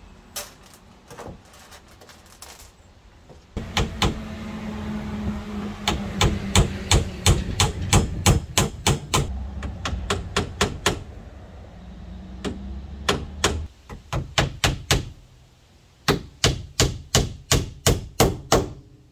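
Claw hammer striking the wooden platform frame in quick runs of sharp blows, about three a second, with a low steady hum behind the first half.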